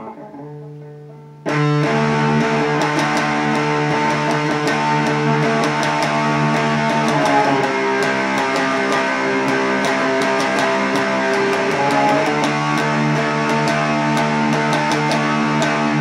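Electric guitar played through an MXR Prime Distortion pedal with distortion and tone turned all the way up, giving a heavily distorted, sustained sound. A quieter chord rings at first, then hard-picked distorted chords come in about a second and a half in, changing chord twice.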